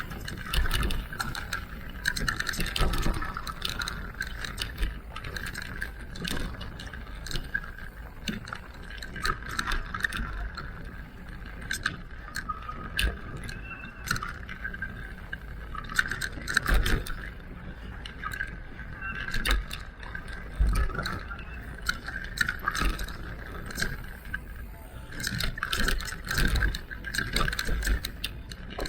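Electric mountain bike ridden over rough trail: frequent knocks and rattles from the bike jolting over the ground, over a wavering whine and rumbling tyre noise.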